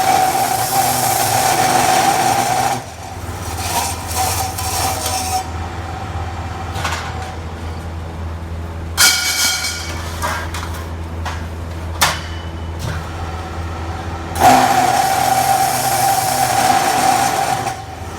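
Automatic miter cutting machine running: its blade cuts through a workpiece at the start and again about fourteen seconds in, each cut a loud ringing whine over the motor's steady hum. A few sharp clicks come between the cuts.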